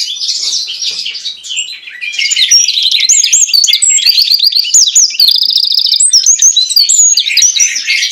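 Caged songbird singing loudly, a long varied song of fast chirps and whistled slurs. It eases off briefly about two seconds in, then returns with rising and falling whistles and a rapid, even trill about five seconds in.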